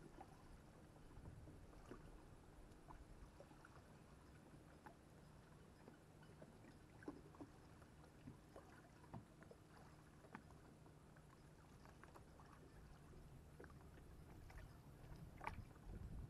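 Faint lapping of small waves over a pebble shore, with scattered small ticks and trickles of water among the stones, growing a little louder near the end.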